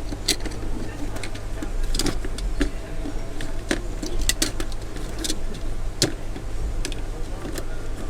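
Irregular sharp clicks and taps of a repaired TV inverter board and its parts being handled and fitted back in place, about ten in all, over a steady low mains hum.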